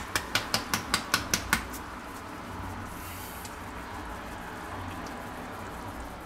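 Whole nutmeg rasped against a small grater, about five quick strokes a second, stopping about one and a half seconds in; then a steady hiss of the pumpkin soup simmering in the pan.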